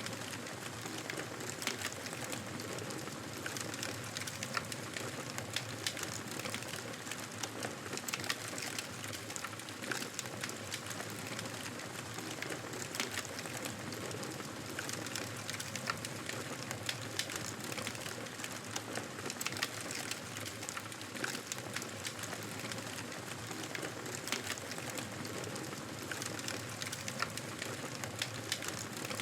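Wood fire burning in a fireplace, crackling with frequent small pops and snaps over a steady hiss of flame.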